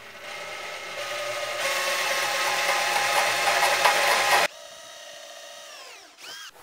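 Cordless drill with a twist bit running steadily as it bores through the plastic wall of a barrel, growing louder as it bites in, then stopping suddenly about four and a half seconds in. A quieter whir follows, with a short rising and falling rev of the drill near the end.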